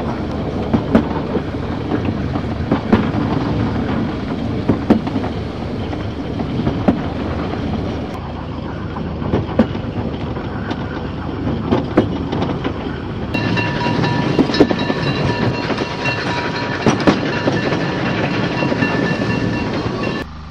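Narrow-gauge steam train running, heard from one of its carriages: a steady rumble with wheels clicking over rail joints about every two seconds. About thirteen seconds in, a steady high ringing tone joins the running noise and holds until near the end.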